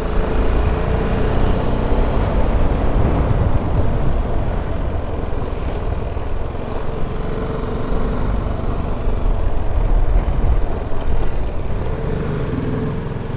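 BMW G310GS motorcycle's single-cylinder engine running steadily on the move, under a constant rumble of riding noise.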